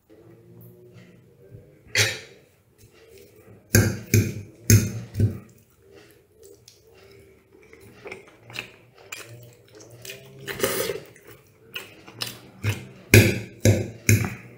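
Metal fork clinking and scraping on a ceramic plate while cutting and spearing fried potato pieces: a single clink about two seconds in, a quick run of clinks a couple of seconds later, a longer scrape near the middle, and another cluster of clinks near the end.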